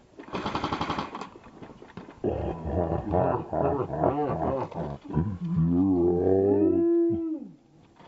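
A rapid burst of shots lasting about a second, like an airsoft gun on full auto. Then a long, loud growling voice that wavers in pitch and ends in a howl, rising and falling before it trails off.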